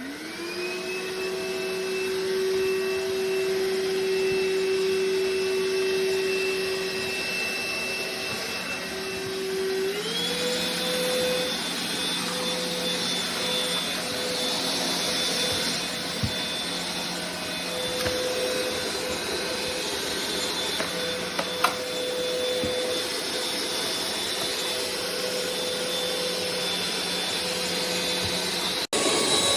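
Cordless stick vacuum cleaner motor switching on and spinning up to a steady whine. About ten seconds in, the whine steps up to a higher pitch and holds there, as the motor shifts to a faster speed.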